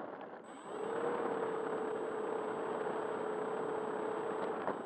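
Model P-51D Mustang's motor and propeller running slowly at low throttle on the ground: a steady tone over a rushing hiss that picks up and rises slightly about a second in. A small click near the end.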